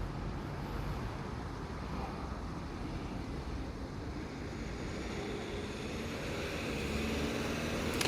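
Road traffic passing through a street intersection: a steady mix of vehicle engines and tyre noise, growing slightly louder near the end.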